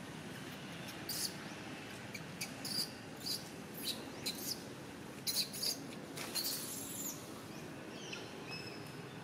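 A run of about a dozen short, high-pitched chirping calls, bunched between about one and seven seconds in, one of them sliding down in pitch, over a steady background hiss.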